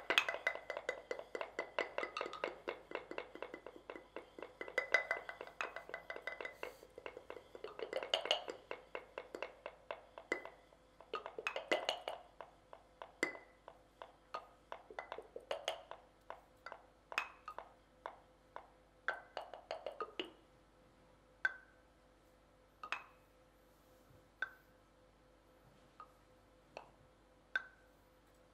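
Morteros, large wooden Canarian castanets, played by several players at once: a dense, rapid clatter of clacks, each with a brief ringing tone, that thins out after about twelve seconds. From about twenty seconds in, only single sharp clacks remain, roughly one every second and a half.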